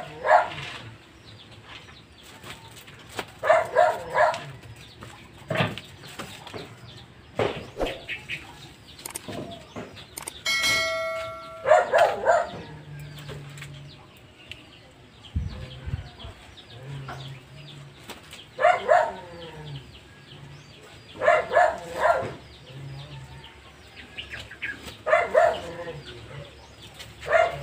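Chickens clucking in short calls every few seconds.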